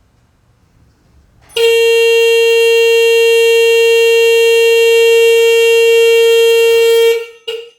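Two car horns wired to a homemade alarm clock go off as the alarm, blaring one steady, very loud note for about five and a half seconds, then cutting out and giving a short blast and the start of another just before the end.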